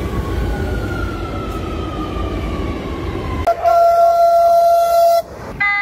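Trains passing: a rumble with a slowly falling whine, then a loud, steady train horn blast starting about three and a half seconds in, and a second, chord-like horn starting near the end.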